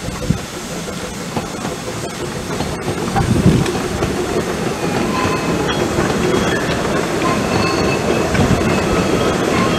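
Narrow-gauge passenger coaches rolling past close by, their wheels rumbling and clicking over the rail joints and growing louder about a third of the way in. Thin wheel squeal from the coaches on the curve comes in about halfway through.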